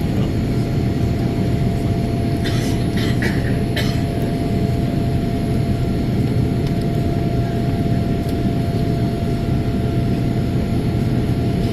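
Jet airliner cabin noise during the takeoff climb: a steady low rumble of engines and airflow with a thin constant whine. A few short scratchy sounds come about three seconds in.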